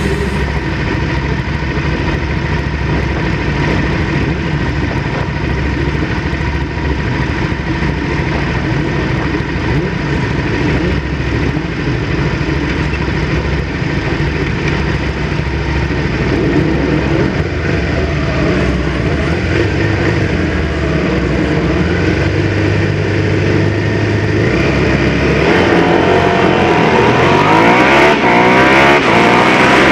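Racing motorcycles on a starting grid, among them the on-board Suzuki SV650, running at idle and revving. About 25 seconds in, the field launches and the engines climb sharply in pitch as they accelerate away.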